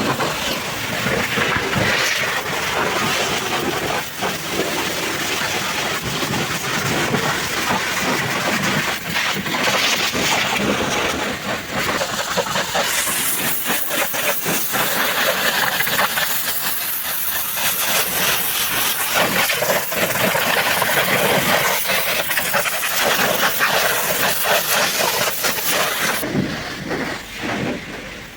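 High-pressure washer spraying water against a muddy truck: a loud, steady hiss with a spattering crackle. The spray thins out near the end.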